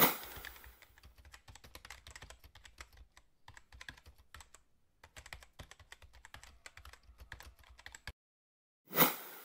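Keyboard typing sound effect: a rapid run of key clicks for about eight seconds, with a brief pause about three and a half seconds in. A loud swish opens it, and another comes about nine seconds in.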